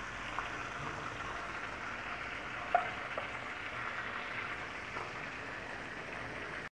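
Flour-coated chicken drumsticks deep-frying in hot oil in a karahi: a steady sizzle, with a few light clinks as a slotted spoon lifts the golden-brown pieces out. The sound cuts off suddenly near the end.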